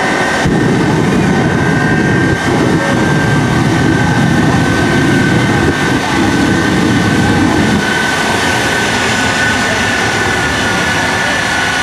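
Shockwave jet truck's three jet engines firing on afterburner: a loud, deep rushing blast sets in about half a second in and eases off near the end, over a steady high turbine whine.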